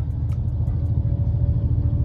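Steady low rumble of a Shinkansen bullet train heard from inside the passenger car, with a faint hum running through it.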